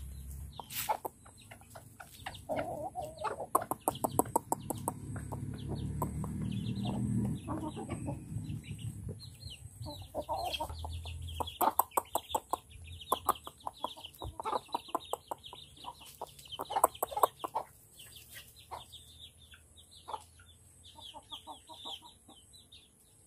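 Chickens clucking as they peck at scattered feed, in quick runs of short clucks. High peeping from young birds joins in from about halfway through.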